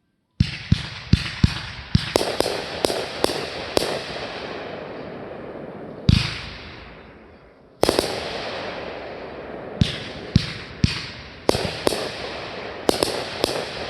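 Fireworks going off: a rapid run of sharp bangs in several clusters, with continuous crackling and hissing between them and one deeper boom about six seconds in.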